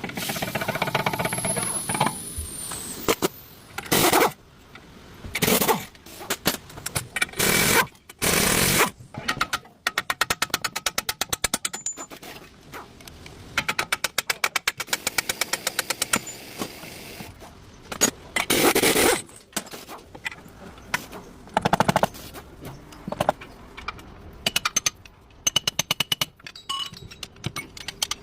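Workshop air tools running in bursts: several two-second runs of rapid, evenly spaced hammering clicks, with short loud bursts of hissing noise in between.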